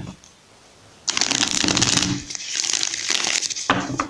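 A deck of tarot cards being shuffled by hand: a dense, rapid flutter of cards starting about a second in and lasting nearly three seconds, with a brief dip midway.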